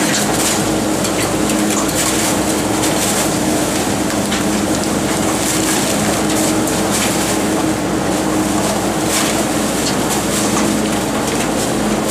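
Rotary-drum garbage truck running with its drum turning: a steady mechanical drone with a constant low hum. Bags of rubbish landing in the hopper add short rustles and thuds here and there.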